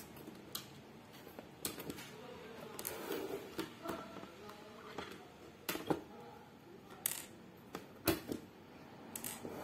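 Sharp plastic clicks, about eight of them at irregular intervals, with soft handling noise between, as fingers work the body clips of a small WLtoys K989 RC drift car to release its plastic body shell.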